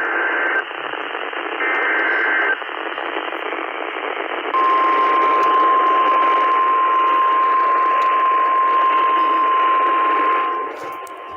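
Emergency Alert System sequence on a NOAA Weather Radio receiver, over steady radio static. It ends one two-pitch SAME data burst, plays another about two seconds in, then sounds the long, steady 1050 Hz warning alarm tone from about four and a half seconds in, which signals that a new warning is about to be read. The static drops away near the end while the tone keeps going.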